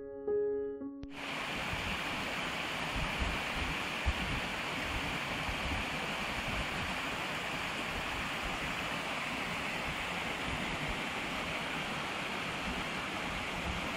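Steady rush and splash of a small woodland stream spilling down low rocky cascades. Piano notes stop about a second in.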